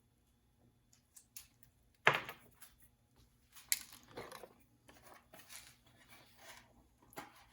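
Tools and small parts being handled and rummaged through: a sharp knock about two seconds in, then scraping and rustling with a few clicks.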